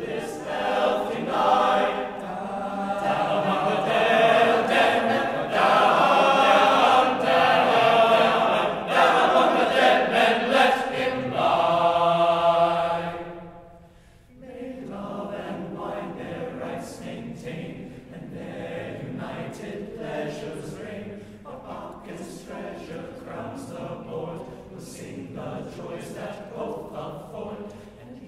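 A men's choir of low voices singing a cappella: loud and full through the first half, releasing a held chord about halfway through, then carrying on more softly.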